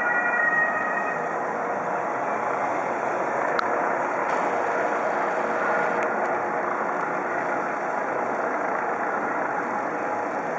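Convoy of police vans driving past: steady engine and tyre noise, with a siren fading out about a second in.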